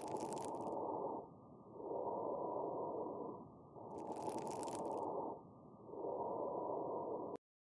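Fine crackles (rales) in a lung-sound recording: breath sounds rise and fall in repeated breaths, with a high-pitched crackling on two of the breaths, at the start and about four seconds in. Fine crackles are an abnormal lung sound, heard mainly on inspiration. The recording cuts off suddenly near the end.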